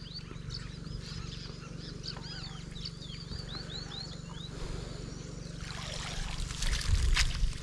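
Birds calling: a rapid string of short, high, hooked chirps for the first four seconds or so. Then rustling, and a few low thumps near the end.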